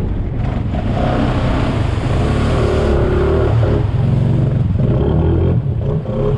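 Honda Foreman ATV engine running loud and steady as the quad is ridden, easing briefly near the end.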